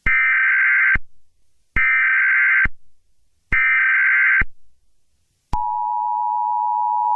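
Emergency Alert System header: three bursts of SAME digital data tones, each about a second long with short gaps, followed about five and a half seconds in by the steady two-tone EAS attention signal.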